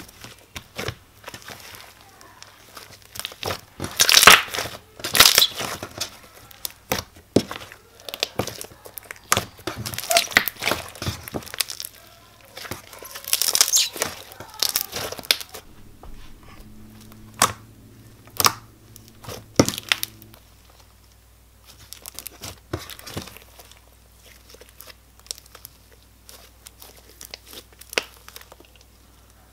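Jelly cube slime, glitter glue slime packed with foam magic-eraser cubes, being squeezed and kneaded by hand, giving irregular crunchy crackles. They come in clusters, loudest about four to five seconds in, and grow sparser near the end.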